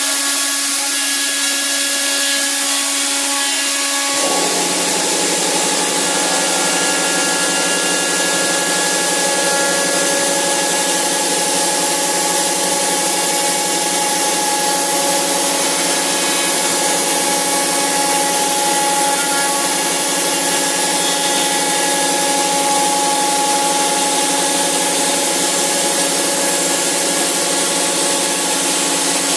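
Robot-mounted Arel milling spindle cutting material: a loud, steady mix of spindle whine and cutting noise. The sound fills out lower about four seconds in.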